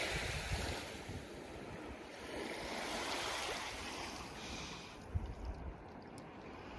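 Small waves of open lake water washing up onto a pebble beach and drawing back, in swells that rise and fade. Wind buffets the microphone briefly near the end.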